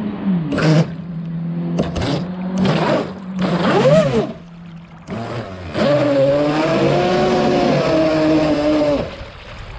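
Boat motor revving in several short throttle bursts, its pitch climbing and falling, then running steadily for about three seconds with the pitch gently wavering before it drops off.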